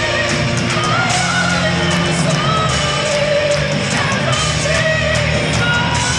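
A symphonic metal band playing live in a large hall: a woman sings over distorted guitars, drums and keyboards, loud and steady throughout.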